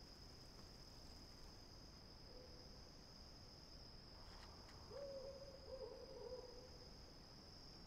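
Near silence, with a faint steady high-pitched whine throughout and a soft low hooting tone that comes in about five seconds in and lasts under two seconds.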